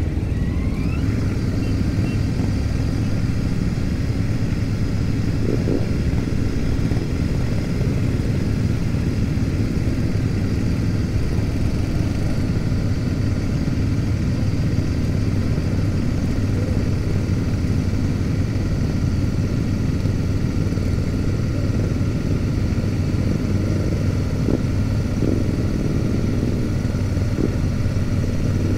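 Royal Enfield Super Meteor 650's 648 cc parallel-twin engine running steadily at cruising speed, heard from the rider's seat, among a convoy of other motorcycles.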